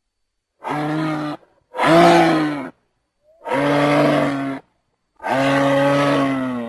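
Moose calling: four long, low calls of about a second each, the second one the loudest and rising then falling in pitch.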